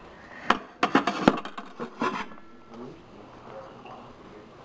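Glass saucepan lids and cookware clinking and knocking together as a lid is picked out of a kitchen cabinet: a quick run of sharp, ringing clinks in the first half, then faint handling.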